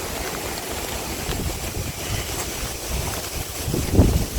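Wind buffeting the microphone in an uneven low rumble, with a stronger gust near the end.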